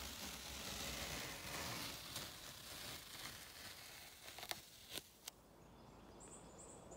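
Faint crackling hiss with a few sharp clicks, then after about five seconds faint high insect chirping.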